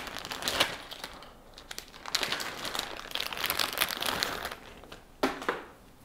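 Thin plastic packaging bag crinkling as it is handled, in two spells, followed by two light knocks about five seconds in.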